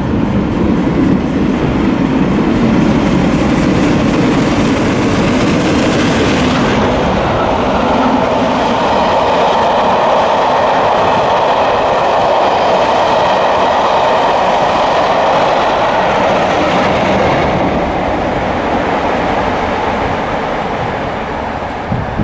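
Steam-hauled passenger train passing at speed: ex-LMS Royal Scot class 4-6-0 locomotive 46100, loudest as it goes by about six seconds in, followed by its long rake of coaches rolling past on the rails. The sound fades away over the last few seconds.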